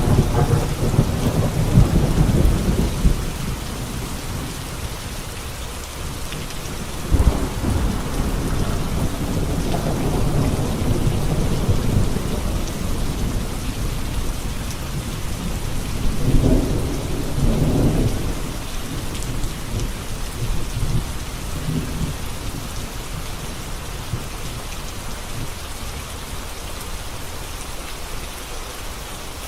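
Heavy rain falling steadily on a road, with low rumbles swelling up near the start, about seven seconds in, and again around sixteen to eighteen seconds.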